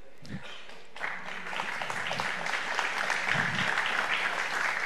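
Audience applauding: a dense patter of many hands clapping that starts about a second in.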